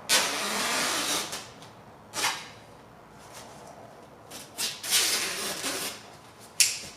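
Rustling and scraping of new window screen mesh being handled and laid out on the frame: a long rustle at the start, a short one about two seconds in, several more around five seconds, and a sharp click near the end.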